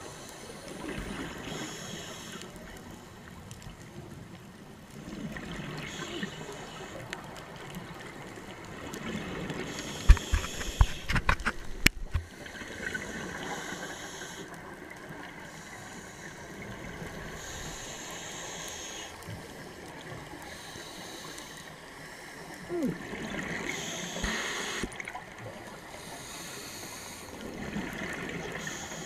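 Scuba diver breathing through a regulator underwater: a hiss on each inhale and a gurgle of exhaled bubbles, coming every few seconds. A cluster of sharp clicks about ten seconds in is the loudest thing.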